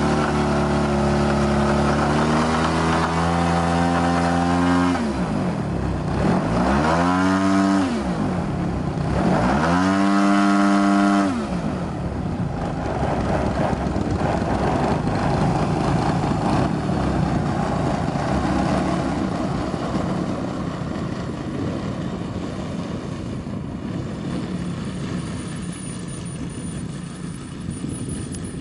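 Two-stroke petrol engine of a ZDZ 180-powered radio-controlled Extra 260 model aircraft idling steadily, then revved up and back down twice in throttle blips. After the second blip the sound turns into a less distinct, even drone that slowly fades.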